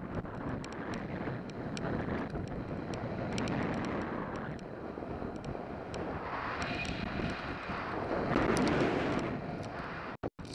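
Wind rushing over the helmet camera's microphone as a splitboard slides fast over wind-packed, rippled snow. The noise is steady with scattered sharp ticks, swells about eight seconds in, and cuts out twice briefly near the end.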